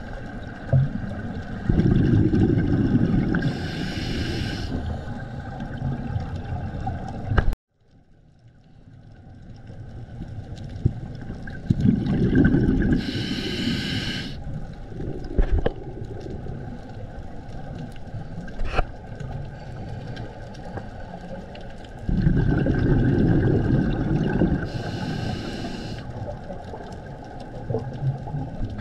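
Scuba breathing through a regulator underwater: three loud rounds of low bubbling exhalation, each with a short hiss, about ten seconds apart. The sound cuts out abruptly about a third of the way in, then fades back up.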